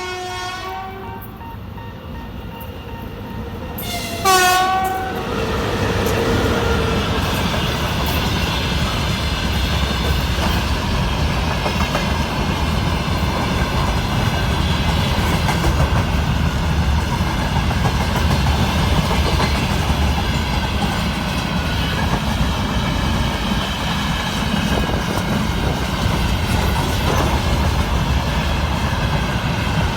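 Russian Railways locomotive horn sounding a held chord, then a second short blast about four seconds in, the crew's greeting horn. It is followed by the train passing close with a steady rumble and wheel clatter.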